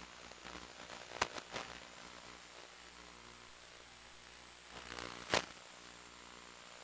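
Steady hiss of radio static with a faint hum underneath, broken by sharp crackling pops: two about a second in and two more, the loudest, about five seconds in.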